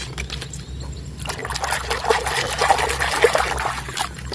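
Water trickling and splashing as a muddy toy is washed, with many small clicks and knocks from the toy being handled. It grows louder and busier about a second in.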